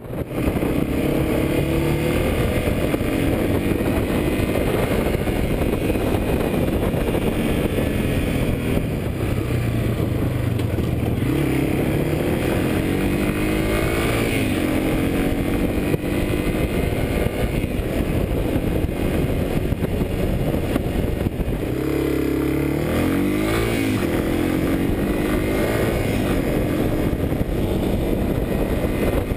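2011 Yamaha TW200's single-cylinder four-stroke engine running under way on the road. Its pitch climbs several times as it accelerates through the gears.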